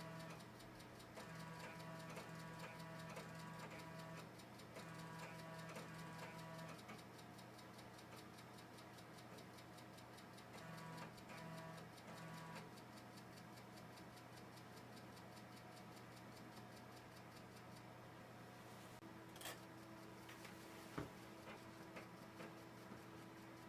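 Old desktop computer running quietly: a steady hum with faint ticking and whirring tones that switch on and off. A couple of sharp clicks come near the end, and a new steady hum starts just before them.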